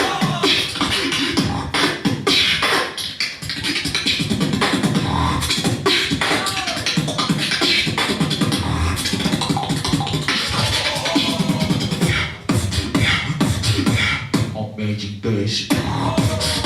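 Solo beatboxing performance: rapid mouth-made kick, snare and hi-hat strokes over heavy vocal bass, with a few gliding pitched vocal sweeps.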